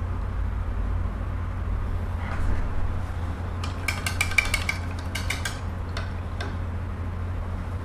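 A rapid run of light glassy clinks lasting about two seconds, starting about four seconds in, as painting gear is handled against glass. A steady low hum runs underneath.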